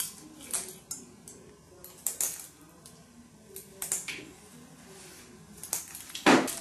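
Metal surgical instruments clicking and clinking in short, irregular taps during an operation, with one louder knock near the end.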